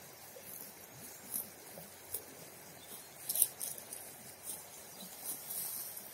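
Cow grazing: irregular crisp rips and crunches as it tears and chews grass, the loudest about three and a half seconds in, over a faint steady rush of river water.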